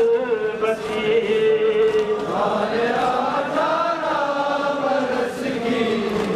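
Men's voices chanting a melodic mourning lament, the notes long, held and slowly rising and falling.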